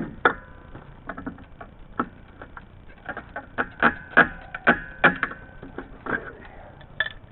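Irregular sharp clicks and knocks, a few with a brief metallic ring, as a pipe union on a well pressure-tank line is tightened down hard with a tool.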